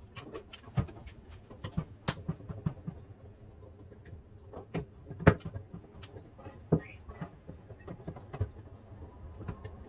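Irregular knocks and clicks, a dozen or so, one much louder a little past the middle, over a low steady background.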